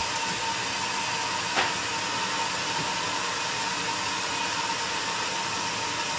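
Band sawmill running with a steady hiss and a faint steady whine while a big log is set on its carriage. A single sharp knock about a second and a half in, from a hammer on the log clamps.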